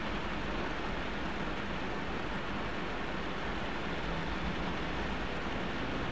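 Heavy rain falling on a vehicle's roof and windshield, heard from inside the cabin as a steady hiss, with a faint steady low hum underneath.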